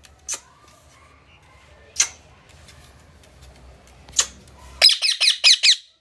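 Indian ringneck parakeets: three short, sharp sounds a couple of seconds apart, then near the end a loud run of harsh screeches, each dropping in pitch, about seven a second.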